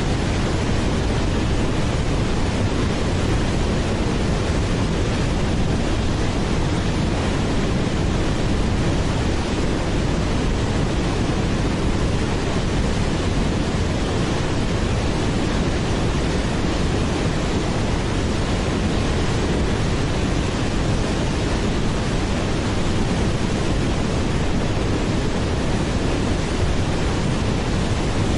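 Waterfall rushing, a steady unbroken wash of water noise that holds the same level throughout.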